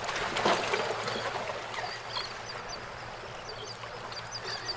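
Bay water lapping and splashing, loudest about half a second in, with faint, high, short bird calls scattered throughout.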